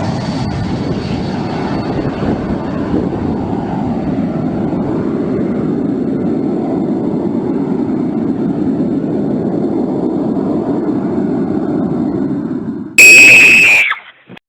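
Airplane engines making a steady rushing drone. About thirteen seconds in, a sudden, very loud blare with a strong high tone cuts in for about a second and falls away, followed by a brief dropout to silence.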